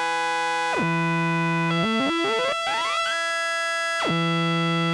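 Buchla modular synthesizer with a hard-synced oscillator pair: as the principal oscillator sweeps, the tone jumps upward in steps, landing on notes of a pentatonic scale. The pitch then holds and drops back to the bass note, twice, about a second in and again about four seconds in.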